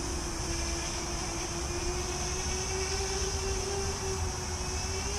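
Electric motors and propellers of a Fimi Manta tiltrotor VTOL hovering: a steady propeller hum that drifts a little in pitch. There is a low wind rumble on the microphone underneath. Right at the end the pitch begins to swell upward as the throttle changes.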